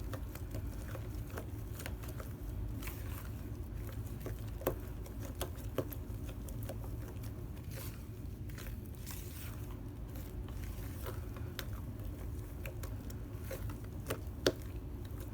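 Spatula folding whipped topping into a thick pumpkin mixture in a bowl, scraping the bottom and sides with soft, irregular clicks and scrapes, over a low steady hum.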